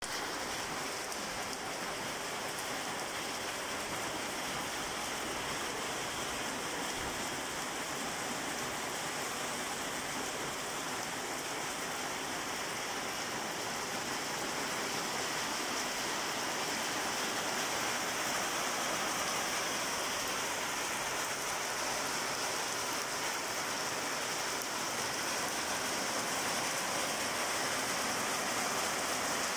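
Light rain falling steadily on garden plants and brick paving, an even hiss that grows slightly louder from about halfway through.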